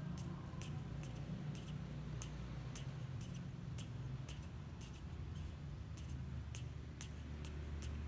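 Faint, sharp light ticks, about two a second and fairly regular, over a steady low hum.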